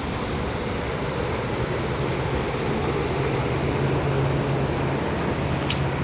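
Steady outdoor background noise with a low mechanical hum that sets in about a second in, and a single sharp click near the end.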